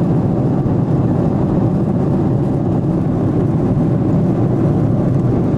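Airliner cabin noise in flight: the steady, even rush of the jet engines and airflow heard inside the passenger cabin, heavy in the low end.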